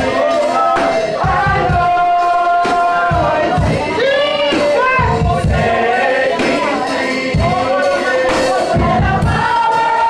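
Gospel worship music: several voices singing together over a heavy, regular low beat.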